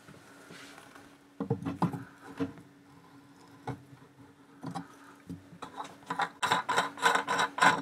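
Water pump pliers working the threaded retaining ring on a mixer tap's cartridge: scattered clicks and scrapes of the tool on the fitting, then a quick run of clicks and rattles near the end as the loosened ring is turned by hand.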